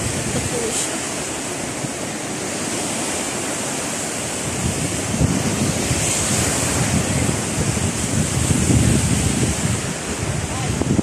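Wind buffeting the microphone in gusts over the steady rush of ocean surf breaking. The wind rumble grows stronger about halfway through.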